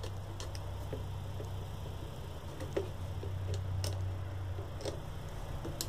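Faint, scattered small clicks and ticks of a small screwdriver working the set screws of knobs with brass inserts, with the knob and tool handled against the module's faceplate, over a steady low hum.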